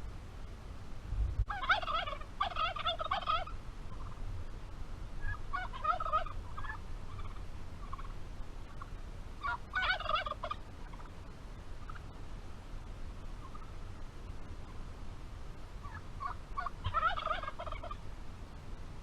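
A turkey gobbling four times, each gobble a quick rattling burst of a second or two, spaced several seconds apart.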